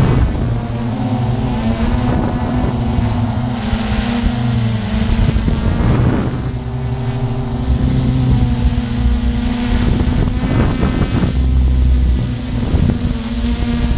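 Multirotor drone's motors and propellers heard from the camera it carries: a steady, loud, buzzing hum of several tones that shift in pitch as the drone manoeuvres, broken twice by a rush of noise like wind on the microphone.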